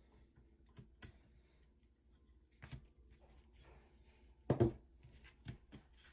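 Handling noise from pulling a circuit card out of a Neve 1073 preamp chassis and moving the unit: a few light clicks and rattles, with a louder dull knock about four and a half seconds in, then two small ticks.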